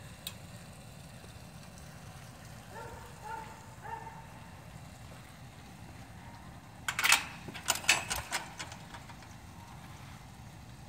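Chain-link gate rattling and clanking as it is handled, a quick run of sharp metallic clicks lasting about a second and a half past the middle. Earlier come three short high whines from a Doberman.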